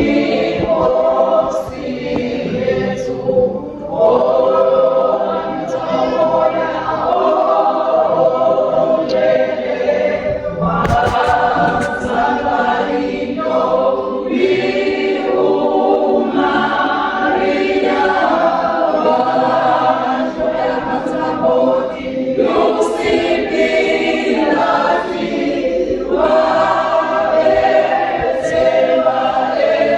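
A choir singing a hymn together in harmony, in phrases a few seconds long with short breaths between.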